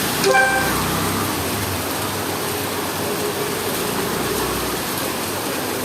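Heavy rain pouring steadily, with a low traffic rumble and a short vehicle horn toot about a third of a second in.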